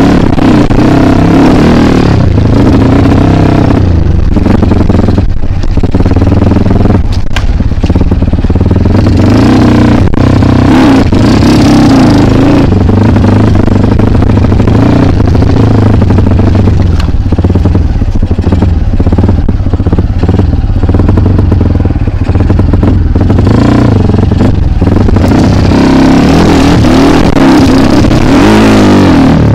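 Single-cylinder dirt bike engine revving up and down over and over as the throttle is worked, with scattered knocks and clatter.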